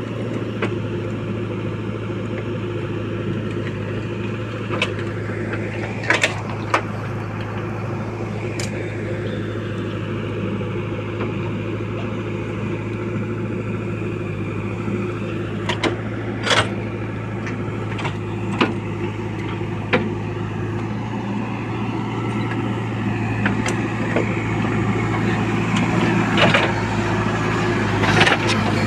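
Tata 315V earthmoving machine's engine running steadily at work, with occasional sharp knocks and clanks; it gets a little louder near the end.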